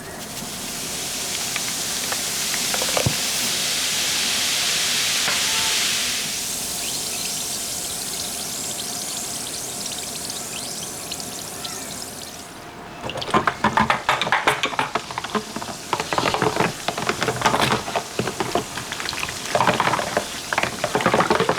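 A steady hiss of water running for about twelve seconds, then rapid, irregular scrubbing strokes from a brush or sponge.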